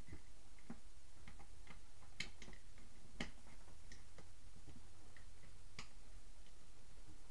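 Irregular light clicks and clinks of metal buckle and snap hardware on a leather motorcycle saddlebag as its lid is strapped and buckled shut, with a few sharper clicks about two, three and six seconds in. A faint steady low hum underneath.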